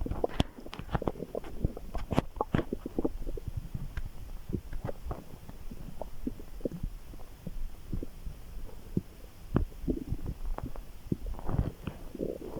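A person's stomach gurgling and rumbling, with many small pops and squelches. It is busiest in the first few seconds and again near the end.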